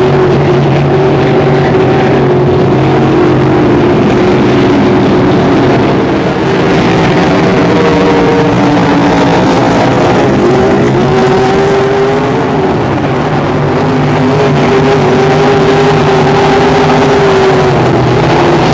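Several racing speedboat engines running hard at speed together, their overlapping pitches shifting up and down as the boats pass.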